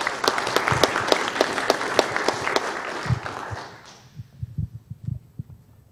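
Audience applauding, fading out about four seconds in, followed by a few faint low knocks.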